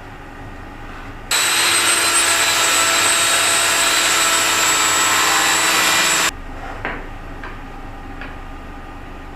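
Power saw running and cutting plywood for about five seconds, starting and stopping abruptly, followed by a few light knocks.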